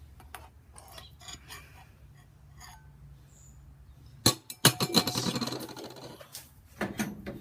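A wine glass and other hard objects being handled and set down: a few faint clicks, then two sharp clinks a little over four seconds in, followed by about a second and a half of clinking and rattling and one more click near the end.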